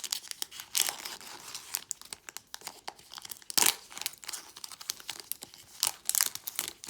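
Foil wrapper of a Pokémon TCG Evolutions booster pack being torn open and crinkled by hand: irregular crackling and rustling, loudest about three and a half seconds in.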